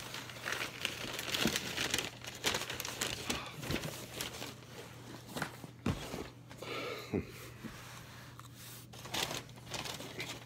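Crinkling and rustling of packing material and cardboard as hands rummage in a shipping box, with a few light knocks of VHS cassette cases being handled.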